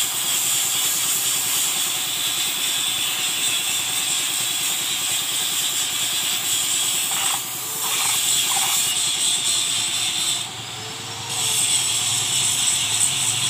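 Compressed-air paint spray gun hissing steadily as it sprays a candy purple coat onto a motorcycle wheel rim. It eases off briefly twice, about seven and a half and ten and a half seconds in. A low hum runs underneath.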